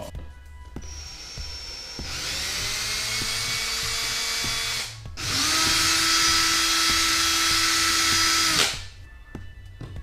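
Cordless drill running with its bit against a wall, in two runs: a steady one of about three seconds, then after a brief pause a louder one of about three and a half seconds that cuts off suddenly.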